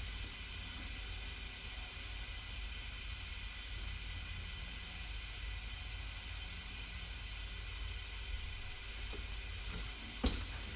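Steady low hum and hiss of background noise, with a single sharp click near the end.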